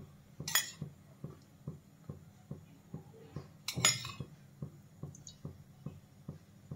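Metal spoon clinking against a kadai twice, about half a second and about four seconds in, with a faint quick ticking in between while the oil heats.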